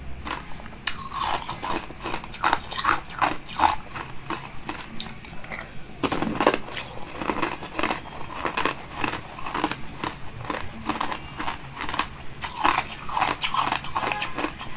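Close-up mouth sounds of biting into and chewing a translucent bird-shaped jelly sweet on a stick: crackly crunches and wet chewing clicks, with a louder bite about six seconds in.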